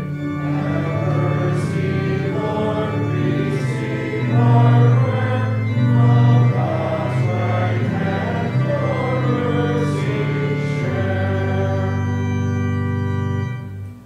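Organ accompanying voices singing a hymn, with chords changing about once a second and a long held final chord that stops shortly before the end.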